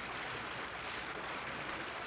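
Steady, even hissing rush with no voices, strikes or other events in it.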